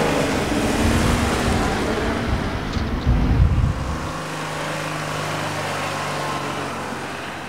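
Scion FR-S's 2.0-litre flat-four boxer engine accelerating and driving past, with a louder low rumble about three seconds in. After about four seconds it settles to a quieter, steady engine drone.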